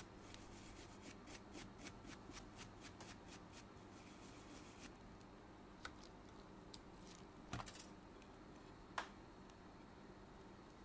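Faint, quick scrubbing strokes on a PS5 DualSense controller's circuit board, about three a second, cleaning off old soldering flux. The scrubbing stops about five seconds in, and a few light clicks follow.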